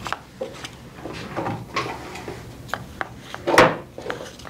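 Handling of cards and a small card box close to a handheld microphone: a string of light clicks, taps and rubs, the loudest a longer scrape about three and a half seconds in.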